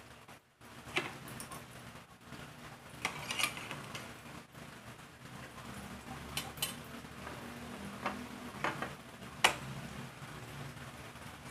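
Metal fork and knife clicking and scraping against a ceramic plate in scattered short taps while a pancake is cut, with the sharpest clink near the end as the cutlery is laid down on the plate.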